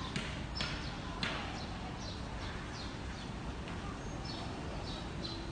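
Steady outdoor background noise with a few sharp clicks in the first second or so and some faint, short, high bird chirps in the middle.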